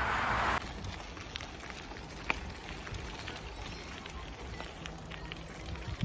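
Bicycle tyres rolling over a gravel path: a fine, steady crackle scattered with small clicks and pops. Before that comes a moment of loud steady rushing noise that cuts off abruptly about half a second in.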